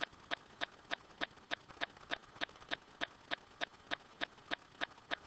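Steady, even ticking: sharp light clicks at about three a second.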